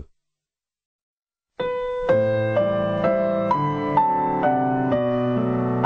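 Complete silence for about a second and a half, then a gentle piano melody starts, about two notes a second.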